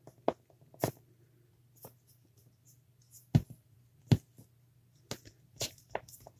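Irregular small taps and knocks of hand tools and polymer clay being handled on a work table, the two loudest about three and four seconds in, over a faint steady low hum.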